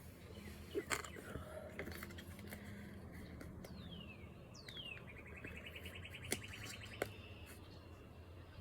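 A bird singing faintly: two falling whistled notes, then a fast even trill. A few light clicks come in between.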